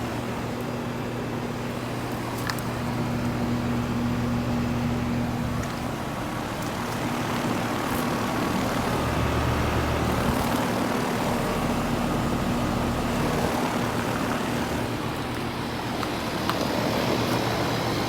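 Residential central air conditioner condensing units (a Goodman GSX13 and Ruud 2-ton units) running: a steady compressor hum under the rush of the condenser fans. The low hum shifts a little partway through.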